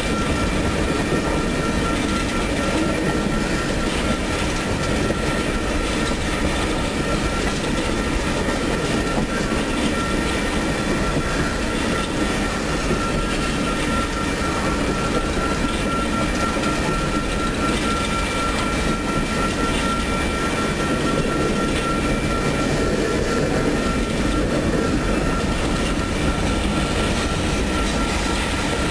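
Empty coal cars of a freight train rolling steadily past, a continuous rumble and clatter of steel wheels on rail with a thin, steady high-pitched tone running through it.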